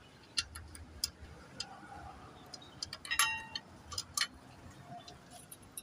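Scattered sharp metal clicks and clinks of tools and engine parts being handled, with one louder ringing clink about three seconds in.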